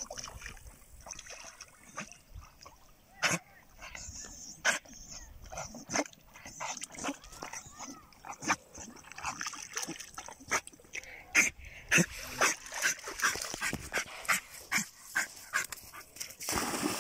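German Jagdterrier whimpering and giving short yips, many quick sharp sounds that come thicker in the second half.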